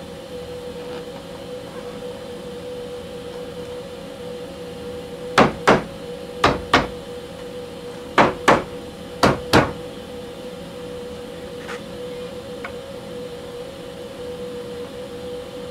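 Sharp hammer knocks, four quick pairs of taps a second or so apart, as the board and its shims are tapped down flat on the CNC bed. A steady machine hum runs underneath.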